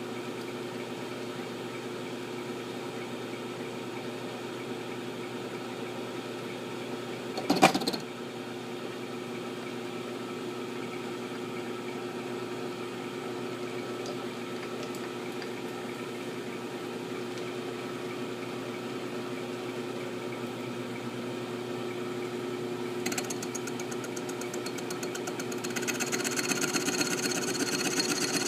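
Milling machine running steadily while slots are machined into an M1911 pistol slide. A single loud knock comes about seven seconds in, and in the last few seconds a higher, rapidly pulsing cutting sound joins in and grows louder.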